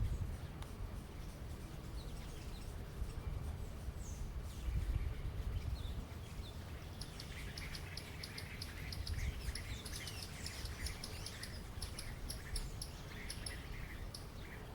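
Lineated woodpecker tapping its bill against a eucalyptus branch: a fast, even run of taps from about halfway in, over a low wind rumble, with a few short chirps before it.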